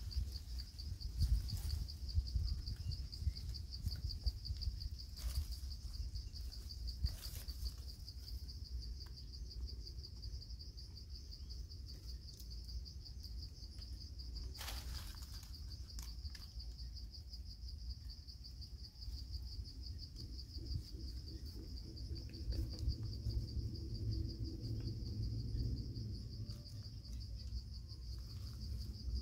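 Steady high-pitched insect chorus with a fast, even pulse, over a low rumble. A few brief cracks or rustles break in, the loudest about fifteen seconds in.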